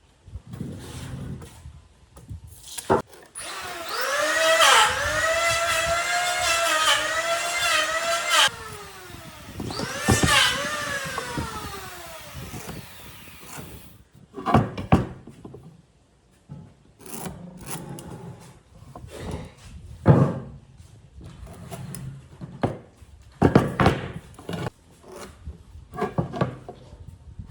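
A power tool's motor spins up and runs for about five seconds, its whine wavering in pitch under load. It runs again briefly and winds down. After that come a series of sharp knocks and taps on wood.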